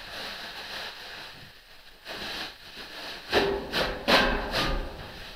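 Loose lathe parts and packing being handled in a wooden shipping crate: light rustling and scraping, then a quick run of loud knocks and scrapes about three to four and a half seconds in.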